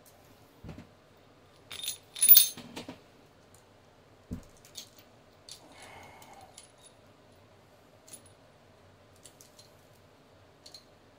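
Steel timing chain and cam phaser clinking and rattling as they are handled and fitted onto a Gen3 Hemi's camshaft, loudest as a jingle of chain links about two seconds in. A dull knock follows a couple of seconds later, then scattered small metal clicks.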